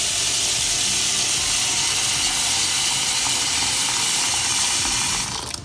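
Tap water pouring into a metal pressure cooker full of vegetables in a sink, a steady splashing hiss that stops shortly before the end.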